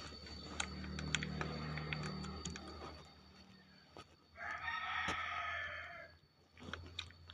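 Homemade slime squished and pressed by hand, giving scattered small clicks and pops. About four and a half seconds in, a rooster crows once in the background, a drawn-out call of nearly two seconds that is the loudest sound.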